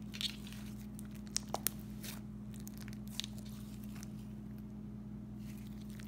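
Butter slime made with Daiso clay being kneaded and pinched by hand: soft squishing with small sharp clicks and crackles, the loudest few in the first two seconds and one more a little after three seconds, over a steady low hum.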